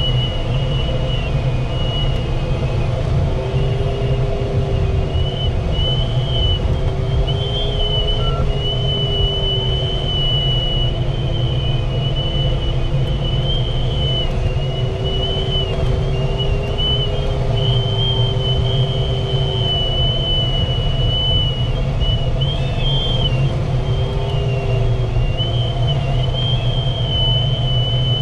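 Airflow rushing over a glider in flight, heard as a steady low rumble, with a thin high whistle and a fainter low tone that slowly wavers up and down in pitch and drops out for a couple of seconds past the middle.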